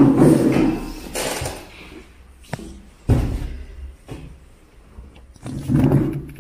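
Indistinct voices in short stretches, with a sudden thump about three seconds in and a few light knocks.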